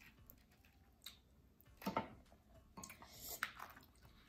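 Faint eating sounds: chewing and a few small wet clicks and squishes as buttery lobster tail meat is pulled from the shell, the clearest about two seconds in and again around three seconds.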